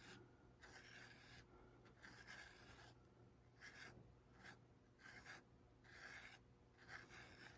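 Faint, repeated rubbing strokes of a hand smoothing the inside of a soft clay pinch-pot bowl, short scrapes about one or two a second.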